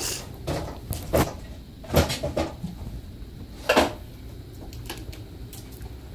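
Cupboard doors and drawers knocking and banging shut as things are packed up: several knocks in the first four seconds, the loudest about two seconds in and just before four seconds, then quieter.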